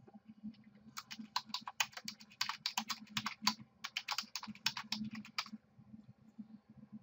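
Typing on a computer keyboard: a quick run of keystrokes that starts about a second in and stops a little over five seconds in, with a brief pause around the middle.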